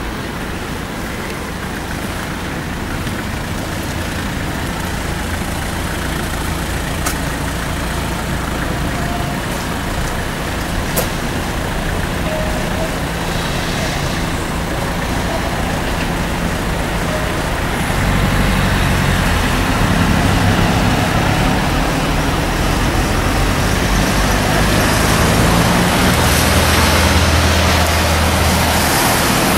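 Steady traffic noise mixed with rain hiss, slowly growing louder, with a heavier low rumble joining about two-thirds of the way through. Two faint clicks come early in the stretch.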